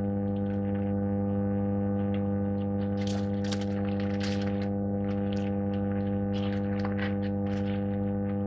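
Aluminium foil crinkling and rustling as it is folded around a wrap, in a run of short crackles from about three seconds in, over a steady electrical hum.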